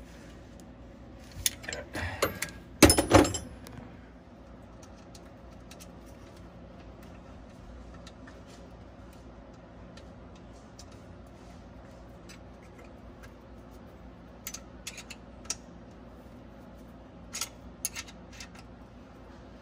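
Metal hand tools clinking against an alternator mounting: a quick run of wrench clanks and clatter about two to three seconds in, then a few light, separate metal clicks later on as parts are fitted at the alternator.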